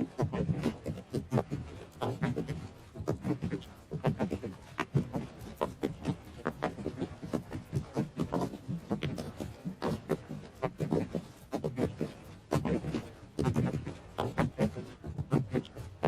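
Horses galloping: a fast, uneven run of hoofbeat thuds and clicks from several hooves at once, continuing throughout.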